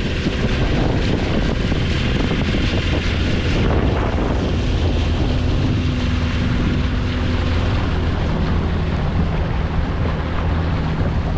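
Outboard motor of a small panga running steadily at cruising speed, a constant low drone, with wind buffeting the microphone.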